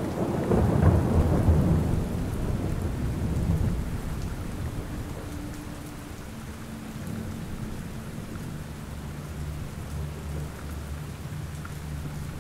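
Steady rain falling, with a roll of thunder at the start that rumbles loudest in the first couple of seconds and then dies away.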